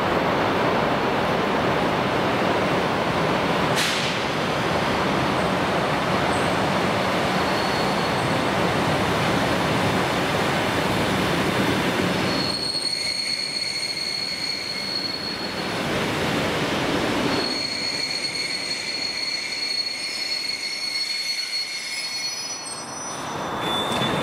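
EP2D electric multiple unit rolling into the platform with dense wheel-on-rail noise and one sharp clank. About halfway through, a high steady squeal sets in as it brakes, in two spells, and fades as the train comes to a stop.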